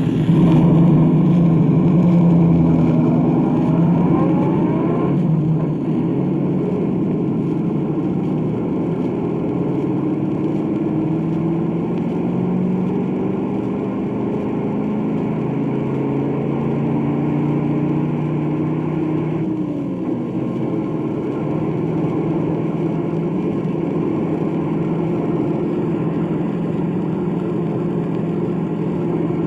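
A car engine, just started, revving up with rising pitch over the first few seconds, then running steadily with small rises and falls in speed. Faint surface noise from the old record is heard under it.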